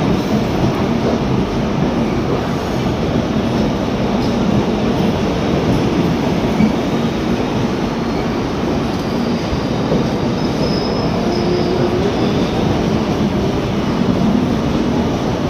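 LHB passenger coaches rolling past along a station platform, a steady rumble of wheels on the rails. A faint high squeal comes in briefly about ten seconds in.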